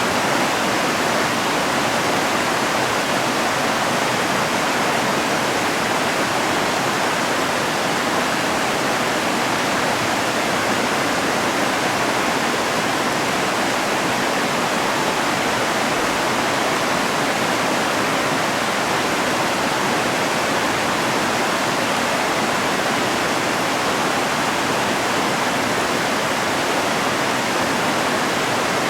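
Mountain river rushing over rocks: a steady, even roar of flowing water, unbroken throughout.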